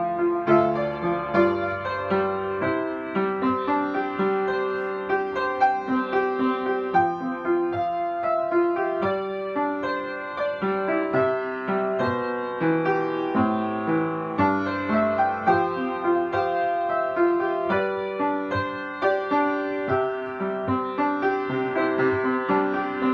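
Solo upright piano playing a melody over chords, notes struck in steady succession without a break.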